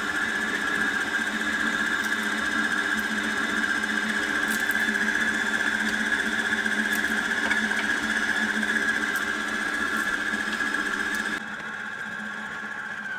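Electric stand mixer running steadily, mixing cake batter: a constant motor whine over a low hum. Near the end it turns quieter and duller.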